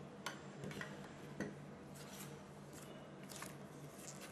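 Hands handling product packaging: a few light knocks and clicks in the first second and a half, then short bursts of paper rustling as instruction leaflets are lifted out, over a faint steady hum.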